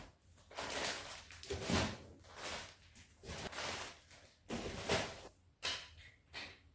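A series of about eight short scraping and rustling sounds, each under half a second, with quiet gaps between, as objects are handled and moved.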